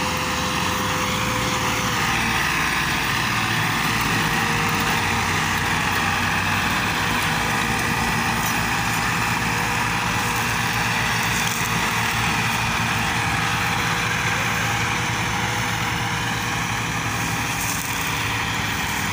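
Two diesel farm tractors hitched in tandem, one an Al-Ghazi, running steadily under heavy load while hauling a loaded sugarcane trolley.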